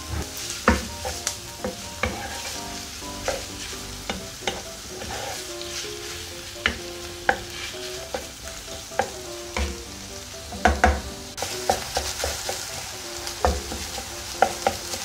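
Minced meat frying with chopped onion and garlic in a frying pan over low heat, sizzling steadily while a wooden spoon stirs and breaks it up, knocking against the pan at irregular moments, most sharply near the end.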